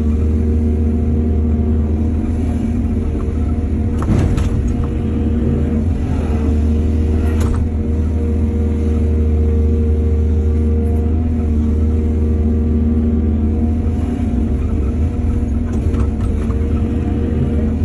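Excavator's diesel engine running steadily, with a knock about four seconds in and another about seven and a half seconds in.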